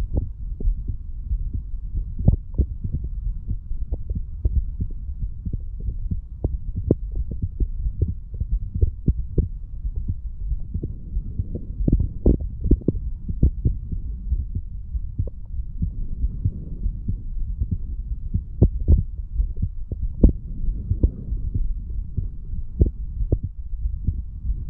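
A man's heartbeat heard close up through the chest wall: short repeated thumps of the heart valves closing, over a steady low rumble.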